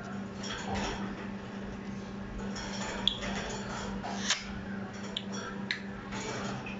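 Parrot making scattered small clicks and brief high chirps, over a steady low hum.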